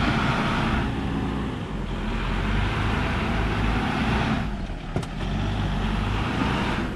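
Pickup truck engine running under load as it pulls a heavy truck camper by a tow chain on wet grass, its sound easing twice. A single sharp click about five seconds in.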